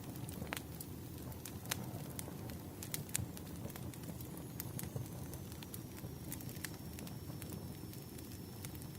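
Wood campfire burning: a steady low rumble of flame with irregular crackles and a few sharper pops, plus a faint thin high whine from about halfway through.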